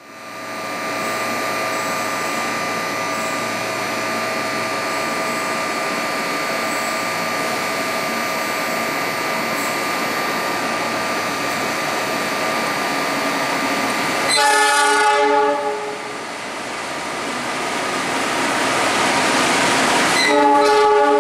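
A KAI CC201 diesel-electric locomotive hauling a container train approaches with a steady running rumble. Its horn sounds twice: a blast of about a second and a half some fourteen seconds in, and a second blast near the end.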